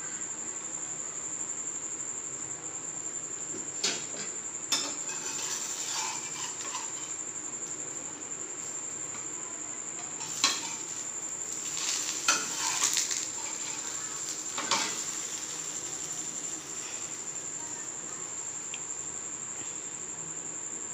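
A spatula knocking and scraping against a flat pan a handful of times, the sharpest knock about ten seconds in, over a steady high-pitched whine.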